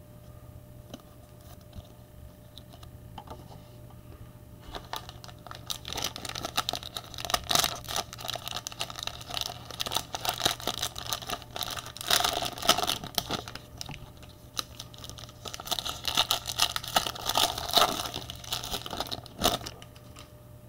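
Foil wrapper of a trading card pack being torn open and crinkled by hand: a crackling, clicking rustle that starts about five seconds in and comes in spells until just before the end.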